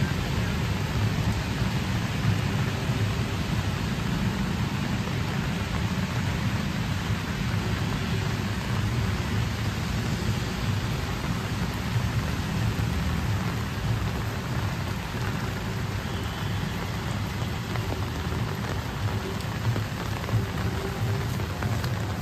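Steady rain falling on wet pavement, an even hiss of rain with a steady low rumble beneath it.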